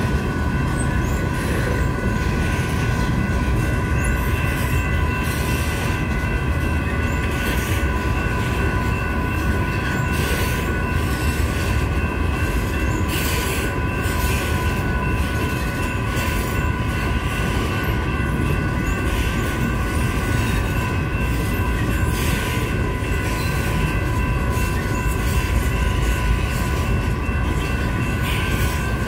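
Loaded covered hopper cars of a grain train rolling through a grade crossing: a steady rumble of wheels on rail with scattered clicks and squeals. Over it the crossing's warning bells ring as steady high tones.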